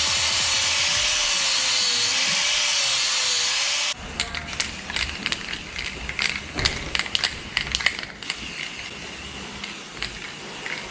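Metal fabrication work: a power tool runs with a loud, steady hiss for about four seconds. It stops abruptly, and a run of irregular metallic clicks and taps from hand tools follows.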